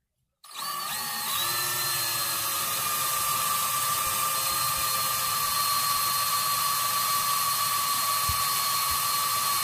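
Power drill starting about half a second in and running steadily with a whine, boring a screw hole into the motorcycle's muffler canister where the rivets were, for the spark arrestor's self-tapping screws.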